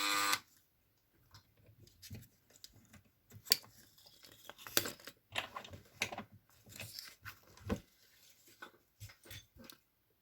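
A Dremel rotary tool runs briefly and stops about half a second in. Then come scattered small clicks, taps and crackles of a diecast toy car and its parts being handled.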